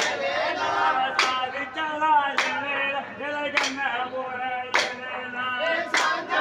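Kummi pattu, a Tamil folk clapping-dance song, being sung while the dancers clap their hands in time, one sharp clap about every second and a quarter.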